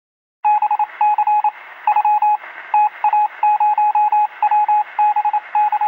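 Rapid electronic beeps on one steady mid-pitched tone, keyed on and off in an irregular, Morse-like pattern of short and longer pips. They start about half a second in.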